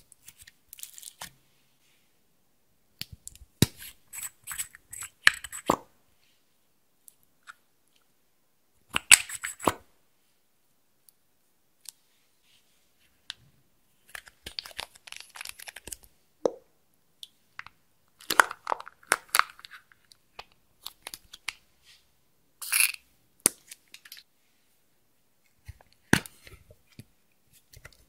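Slime being squished, stretched and poked by hand: sticky clicks and crackles in irregular bursts, with pauses between them.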